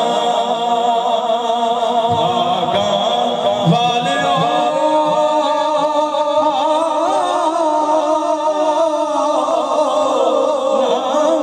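A man singing a Punjabi devotional naat into a microphone, amplified through a PA loudspeaker, in long notes that waver and turn continuously.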